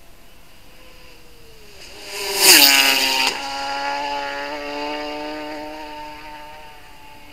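A Superstock racing motorcycle passes flat out. Its engine swells to a loud peak about two and a half seconds in and drops sharply in pitch as it goes by, then fades away over the next few seconds.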